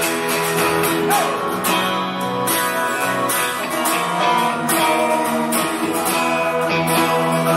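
Live band of two strummed acoustic guitars and an electric guitar playing together, a steady instrumental passage of a song.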